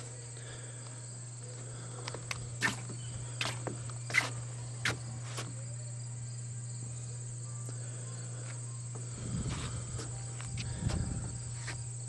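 Steady high-pitched chorus of insects, the cricket-like trilling of a late-summer evening, running under a low steady hum. A few sharp clicks or taps come in the first half, and low thumps follow near the end.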